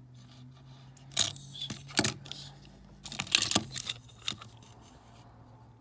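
Small die-cast metal toy pickup trucks clicking and clinking against each other and against fingers as they are handled: a few sharp clicks and a quick cluster of them about three seconds in. A low steady hum runs underneath.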